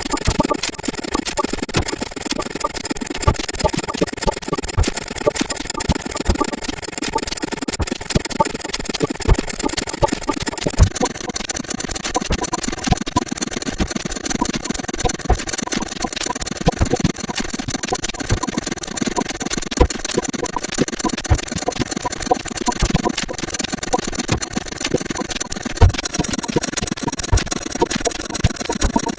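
A dense jumble of many sound effects sped up far beyond normal speed and piled on top of one another: a constant clatter of rapid clicks over a haze of steady tones. The mix of tones changes about eleven seconds in and again near the end.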